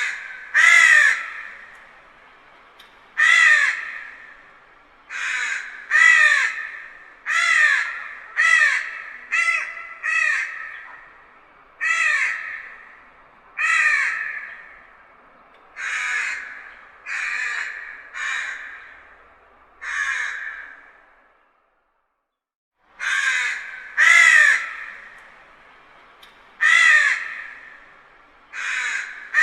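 Crow cawing: a long series of harsh, distant caws, roughly one a second, each trailing off in an echo, with a brief pause about three quarters of the way through.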